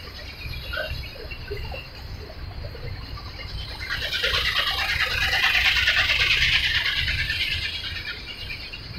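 A flock of small birds chirping together, swelling up about four seconds in and fading near the end, over a steady low rumble.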